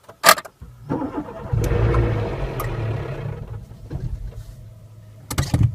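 Renault Mégane petrol engine starting and running up briefly, then settling, with a sharp click just after the start and another loud click near the end.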